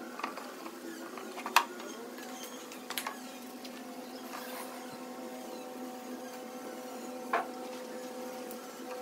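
A steady mechanical hum of several even tones, with a few sharp taps from a paintbrush against the wood; the loudest is about a second and a half in, another comes near the end.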